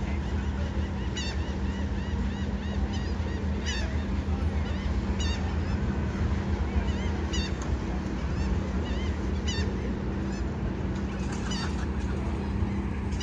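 A crowd of birds calling, with many short chirping notes overlapping and one sharper call repeating about every second and a half. A steady low rumble runs underneath.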